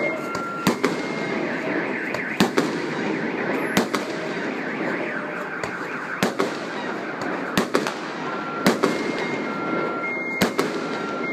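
Fireworks going off: about a dozen sharp bangs at irregular intervals, some in quick pairs, over a steady noisy background. A two-tone alarm beeps near the start and again near the end.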